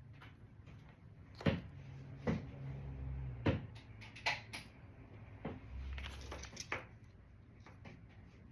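Rocks and crystal specimens clacking as they are handled and set down: about seven sharp knocks at uneven intervals over a low rustle of handling.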